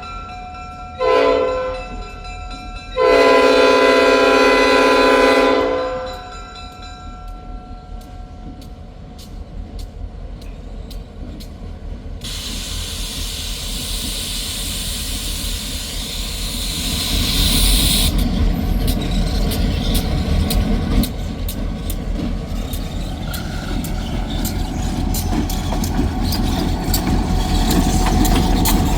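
A train air horn sounds a short blast and then a long one of about three seconds. A diesel freight train then rolls past, its engine rumble growing louder, with wheels clicking over the rail joints.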